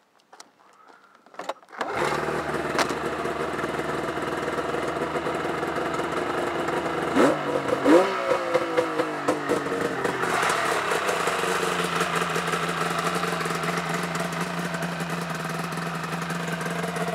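1997 Yamaha Vmax SX 700 snowmobile's three-cylinder two-stroke engine starting about two seconds in and running. It is revved briefly twice, the pitch rising and falling back, then settles into a steady idle.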